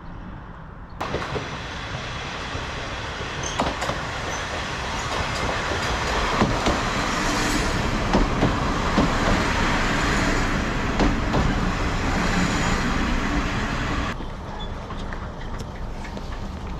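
Kominato Railway diesel railcar under way: engine and wheel-on-rail noise with scattered clicks from the track. The noise jumps up suddenly about a second in, is loudest in the middle, and eases off shortly before the end.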